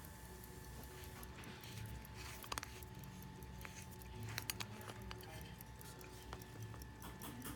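Faint scattered clicks and clinks of a gold-filled pocket watch being handled, a few short clicks about two and a half seconds in and about four and a half seconds in.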